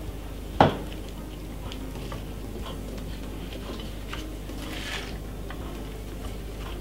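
Light handling of food on crockery: one clear knock of a dish or plate about half a second in, then faint scattered clicks and rustles as salad is laid onto a plate by gloved hands.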